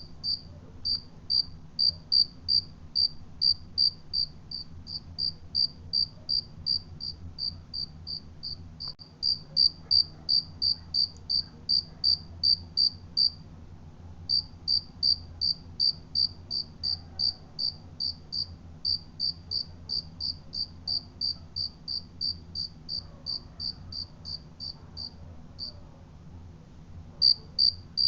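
A cricket chirping steadily in a regular high-pitched pulse of about three chirps a second, pausing briefly about halfway and again near the end.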